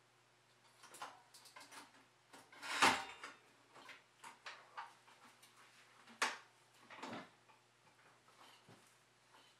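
Bicycle rear wheel being handled and fitted back into the frame: scattered clicks, knocks and chain rattles, with two louder knocks about three and six seconds in.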